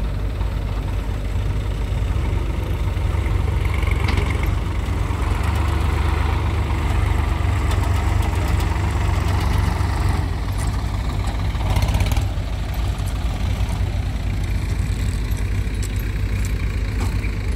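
Diesel farm tractor engine running steadily while pulling a trolley loaded with soil over rough ground. The engine works harder for several seconds in the middle, then eases off about twelve seconds in.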